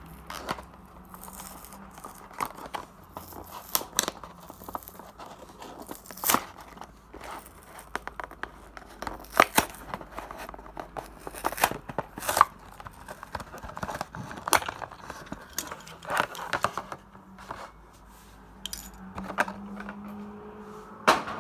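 Cardboard and plastic toy packaging being torn open and crinkled by hand, with irregular tearing sounds, crackles and snaps.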